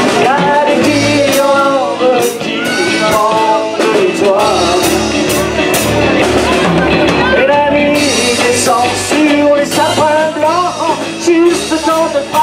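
Live band playing a song: a singer over a drum kit and electric guitar.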